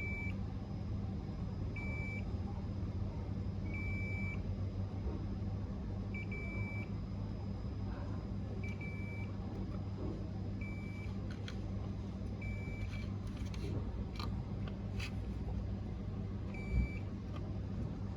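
Fluke 117 multimeter's continuity beeper giving short high beeps about every two seconds as the probes touch points on the repaired board: each beep signals continuity across a rejoined trace. A brief low thump sounds near the end.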